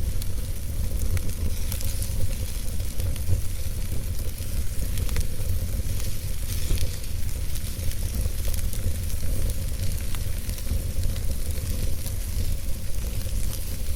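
Campfire burning: a steady sizzling hiss with scattered crackles and small pops, over a steady low rumble.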